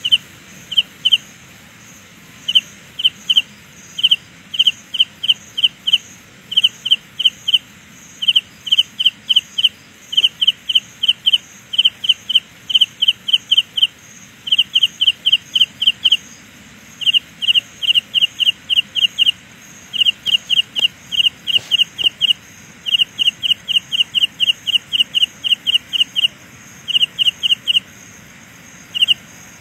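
Carolina ground cricket singing: short, high-pitched chirps repeated about four or five a second in runs of a few to ten, broken by brief pauses, over a faint steady higher trill.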